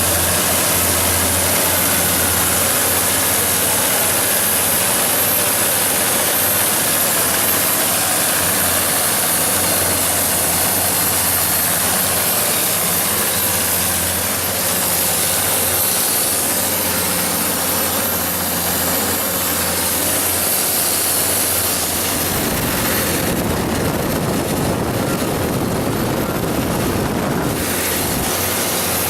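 John Deere 6068HF150 six-cylinder diesel engine of a 170 kW standby generator set running steadily with a low hum, the deep rumble swelling for a few seconds near the end.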